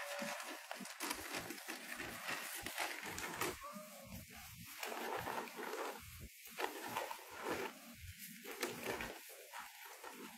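Quiet, irregular soft footfalls and rustling on a paved road over a faint steady hiss, thinning out with short gaps after about four seconds.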